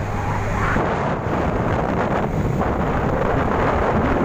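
Wind buffeting the microphone on a vehicle moving at road speed: a loud, steady rushing noise with no distinct engine note.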